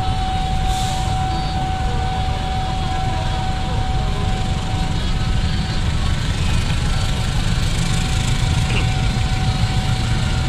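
Diesel-electric locomotive engine running as it hauls a passenger train slowly along the track: a steady low rumble with a thin steady whine over it, and a short hiss about a second in.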